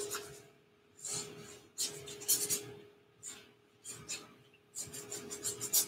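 Paintbrush bristles scrubbing paint onto a canvas in a series of short, irregular strokes with brief pauses between them, over a faint steady hum.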